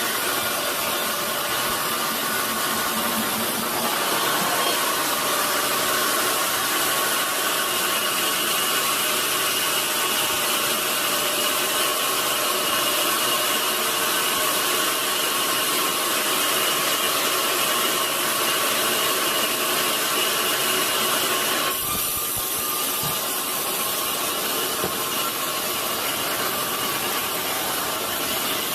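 Sawmill saw running through a large log: a steady, loud machine noise with a high whine. It gets a little louder a few seconds in and eases off, changing tone, about three-quarters of the way through.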